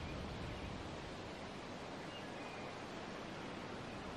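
Faint, steady outdoor woodland ambience: an even hiss with no distinct events.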